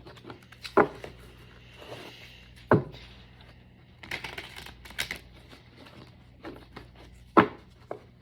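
Tarot cards being shuffled and handled by hand, with a few sharp taps at irregular intervals. The loudest taps come about a second in, near three seconds and near the end.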